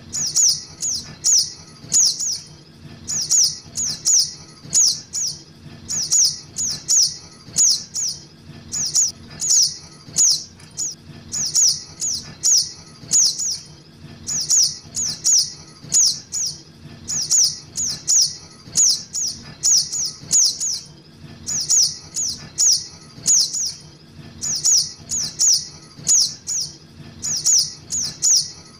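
Juvenile sogok ontong (little spiderhunter) calling: short, sharp, high chirps repeated about three a second in quick runs of three to five with brief gaps. This is a lure call used to draw in the species.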